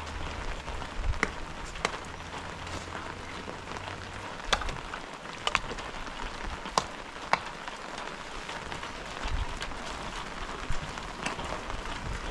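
Steady rain falling, with a few sharp drop impacts standing out now and then.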